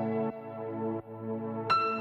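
Background music: a soft new-age piece of held, pulsing tones, with a new bell-like note struck near the end.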